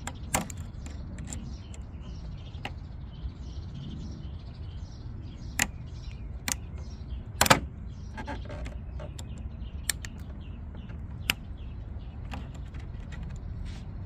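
Slip-joint pliers clicking and clinking against a metal spring hose clamp on a coolant hose as the clamp is squeezed and slid back, in scattered sharp clicks with one louder clatter about seven and a half seconds in.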